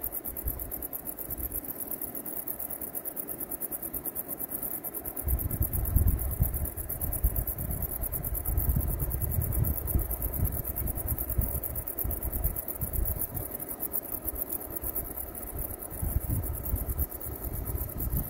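Outdoor ambience: wind buffeting the microphone in gusts, stronger from about five seconds in, over a steady high-pitched chirring of insects such as crickets.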